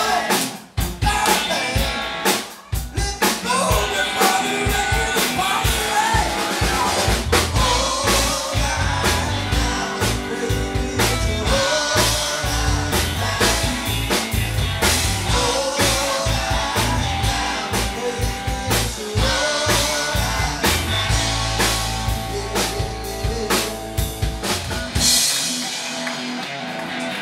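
Live classic rock trio playing: drum kit, electric guitar and keyboards. Near the end the low end drops away for a couple of seconds.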